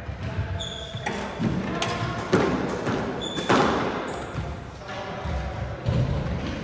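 Sharp thumps echoing around a squash court, three over the space of about four seconds, with short high squeaks and faint voices in the hall.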